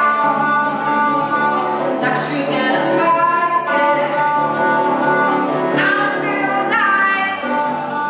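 A woman singing long held notes, accompanied on a stage piano.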